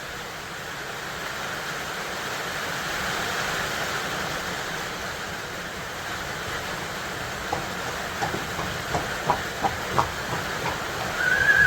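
Steady rushing background hiss. In the second half a quick run of light clicks is heard, and near the end a brief high-pitched chirp.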